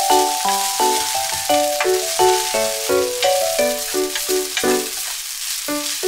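Rice and cabbage sizzling in a hot pot as they are stir-fried with a wooden spatula. A light background melody of short, quick notes plays throughout.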